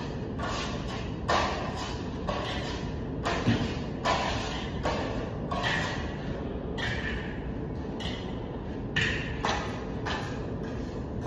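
Plastering trowels scraping across Venetian plaster on a ceiling in a run of short, irregular strokes, over a steady low background hum.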